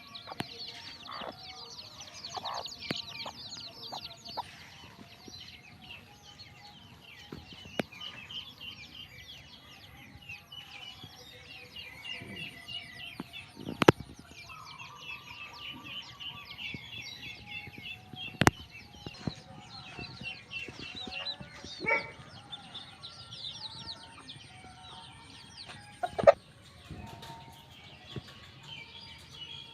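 Backyard chickens clucking, with constant high peeping and chirping throughout. A few sharp clicks or knocks stand out as the loudest sounds.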